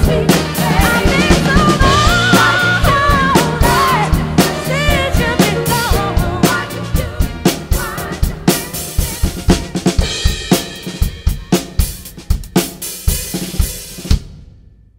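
Drum kit played along with a backing track: snare, kick and cymbal hits drive a groove under a melody line in the first half. The backing then fades, leaving the drums to carry the ending, which stops sharply on a final hit just before the end.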